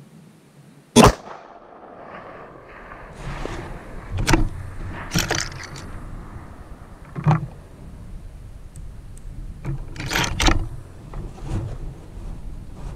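A single rifle shot from a 6.5 Creedmoor Ruger American Predator with a muzzle brake, about a second in. Then come a string of sharp metallic clicks and knocks as the rifle's bolt and scope are handled between shots.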